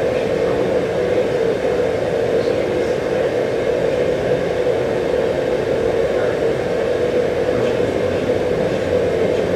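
Steady rushing masking noise with a strong hum-like band in the middle, played loudly and evenly over the courtroom sound system to cover a bench conference.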